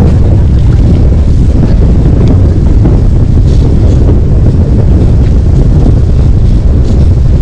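Loud, steady wind buffeting the microphone, a heavy low rumble with no other clear sound.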